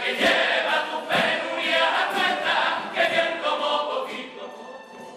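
Carnival comparsa, a group of men, singing together in chorus. The singing fades out near the end.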